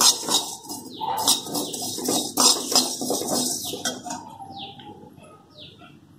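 A perforated steel spatula stirring and scraping whole coriander and cumin seeds around a dry, hot aluminium kadhai: a fast run of scratchy rattling strokes that stops about four seconds in. After that a bird chirps three times, each a short falling note.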